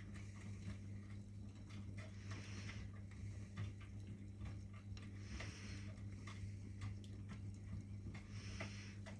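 Miele front-loading washing machine running a wash: a steady motor hum with light ticks and patter of laundry turning in the drum, and a short swish of water and laundry about every three seconds.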